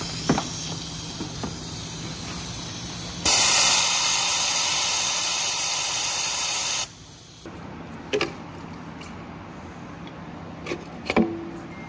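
Compressed air hissing, at first moderately, then much louder for about three and a half seconds before cutting off abruptly. A few short clicks follow near the end.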